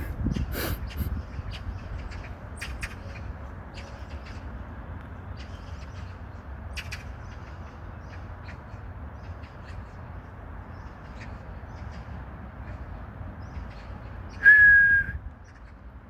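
A single clear high whistle, one steady tone held for under a second, about fourteen seconds in, over a steady low background rumble with faint ticks.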